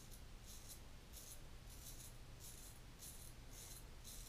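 Short-bladed Portland Razor Sprite straight razor scraping through lathered stubble on the cheek: faint, high-pitched cutting strokes, about two to three a second.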